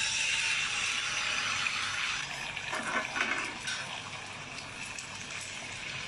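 Water running steadily into a pot or pan as a steady hiss that begins abruptly, is strongest for the first few seconds, then eases off a little.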